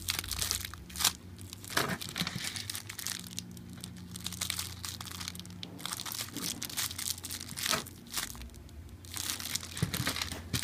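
Clear plastic bags around mini squishy toys crinkling as fingers handle them, with a few sharper crackles now and then.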